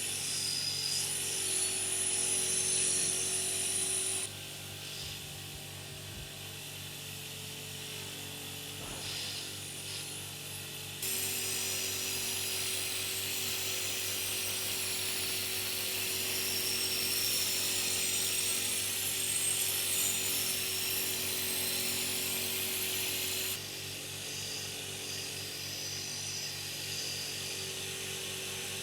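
Electric power tool running steadily, a motor hum under a hiss, with abrupt changes in level about 4, 11 and 23 seconds in.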